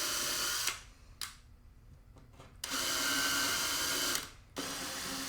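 Power drill running in three short bursts while drilling motherboard mounting holes: the first stops under a second in, the second runs for under two seconds around the middle, and a quieter third starts near the end.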